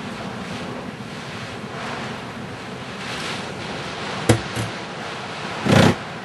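Hurricane-force wind and rain heard from inside a house, a steady rushing that swells and fades in gusts. A sharp knock comes a little past four seconds in, and a louder thump near the end.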